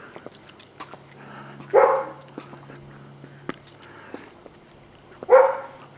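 A dog barking: two single loud barks about three and a half seconds apart.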